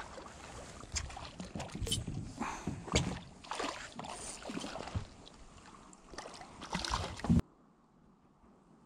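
Irregular knocks, bumps and rustling of people and gear moving about in a small fishing boat on the water, louder strokes around three seconds in and just after seven, then cut off abruptly.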